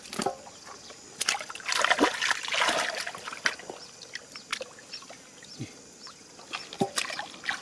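Hands splashing and sloshing through shallow muddy water, with dribbling and sharp little splashes as fish are grabbed and tossed out; the splashing is busiest a second or two in.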